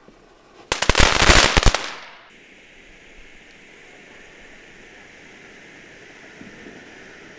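Small firework going off in a rapid crackling string of sharp cracks that lasts about a second, followed by a steady hiss.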